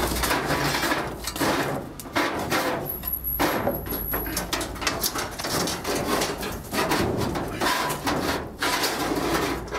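Scrap iron and old metal pieces being shoved into the packed back of a van, clanking and scraping against each other in irregular bursts.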